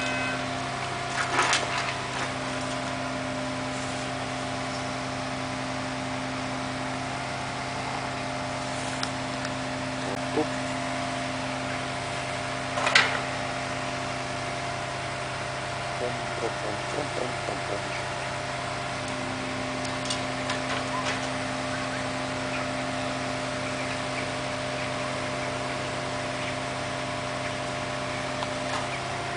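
Steady hum of an idling engine, with a few sharp knocks and clatters of bricks and timber being worked loose during demolition, the loudest about 13 seconds in.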